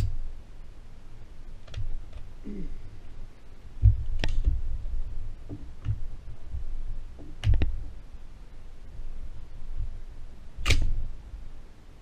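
AR-15 rifle being handled on a wooden shooting bench: scattered sharp clicks and knocks a few seconds apart over a low rumble.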